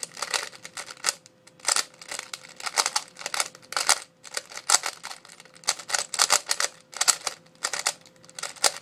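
Type C-II 3x3 speedcube being turned fast during a speedsolve: runs of rapid plastic clicking as the layers turn, broken by short pauses.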